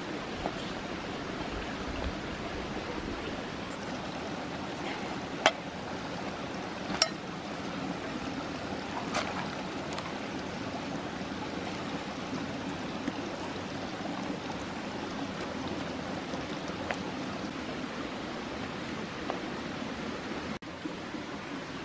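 Shallow stream running over rocks, a steady rushing noise, with a few sharp knocks between about five and nine seconds in.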